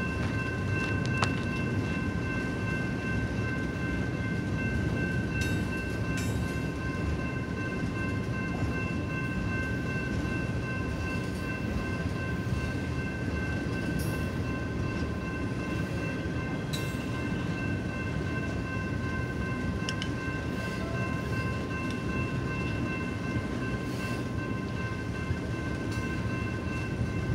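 Double-stack intermodal container train rolling past: a steady rumble of steel wheels on the rails, with a steady high squeal held over it and a few scattered clanks.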